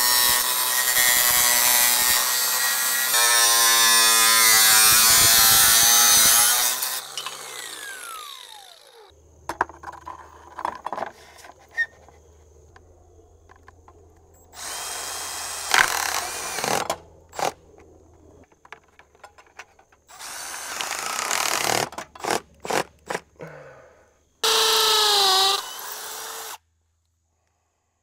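Cordless angle grinder cutting a notch in metal trim for about seven seconds, then winding down with a falling whine. Later a cordless Milwaukee drill drives screws in several short bursts, its pitch rising and falling with the trigger.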